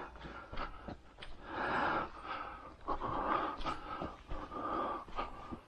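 Heavy panting breaths close to the microphone, in repeated pulses, with footsteps and short clicks and rustles of walking through undergrowth on a muddy trail.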